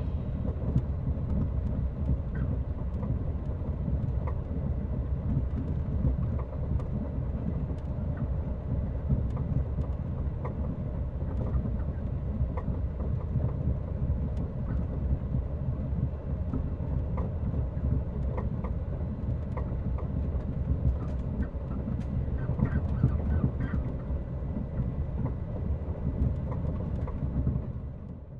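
Low, steady rumbling ambience with faint scattered crackles and clicks, much like a distant train or far-off thunder, cutting off at the end.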